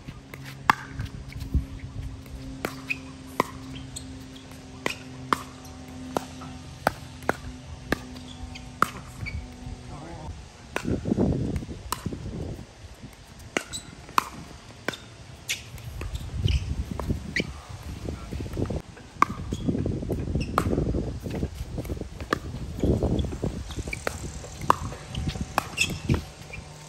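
Pickleball paddles hitting the plastic ball and the ball bouncing on the court: sharp pops about once or twice a second through play. In the second half a low rumble and muffled voices come and go under the pops.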